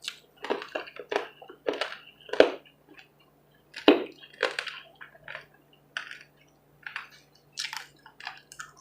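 A person chewing food close to the microphone, with wet smacking and crunching in short, irregular strokes, about two or three a second.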